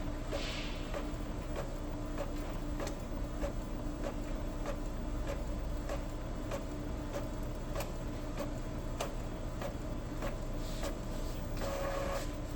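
Epson L5190 ink-tank inkjet printer printing a test page: a steady motor hum with frequent small clicks and ticks as the print head and paper feed work.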